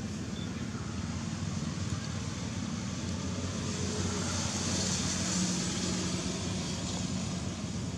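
A motor vehicle's engine running with a steady low hum, growing a little louder with added hiss about halfway through and easing off near the end.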